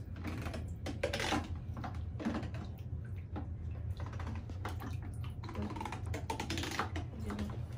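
Small splashes and sloshes of water in a plastic basin as a vinyl baby doll is washed by hand, with irregular light taps and knocks of the doll against the basin. A steady low hum runs underneath.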